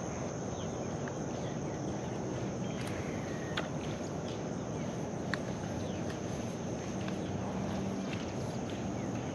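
A steady, high-pitched insect chorus over a background hiss, with a few faint clicks.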